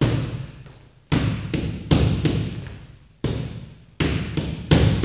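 Boxing gloves smacking into focus mitts in quick combinations: about nine sharp hits in clusters of two to four, each ringing out in an echoing hall.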